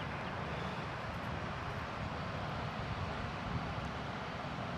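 Steady outdoor background noise with a low rumble, without distinct events.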